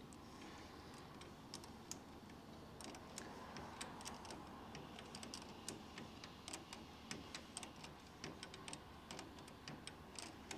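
Faint, irregular small metallic clicks and ticks of hand tools working on the handbrake cable fitting at the rear brake caliper as its nut is done up.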